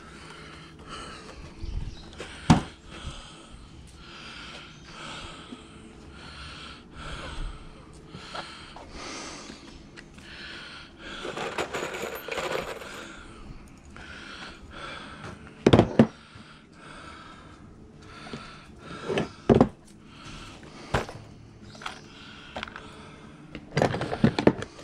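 Metal tools and hardware clinking and knocking as they are handled in a toolbox, with a few sharp knocks about two and a half seconds in, around the middle and near the end.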